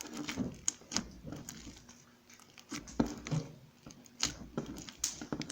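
Slime being worked by hand with lip gloss mixed in, squishing with irregular sticky clicks and pops.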